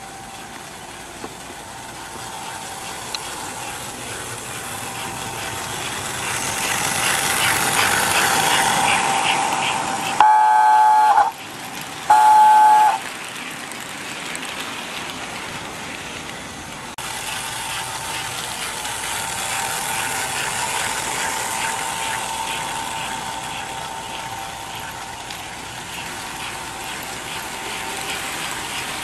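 1958 American Flyer toy train running on its track, a steady clatter of wheels and motor that grows louder as it passes close. About a third of the way in, its whistle sounds twice, each blast about a second long.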